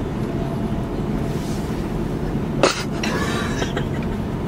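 Steady low rumble of a vehicle cabin, with a single short, loud cough-like burst from a person about two and a half seconds in.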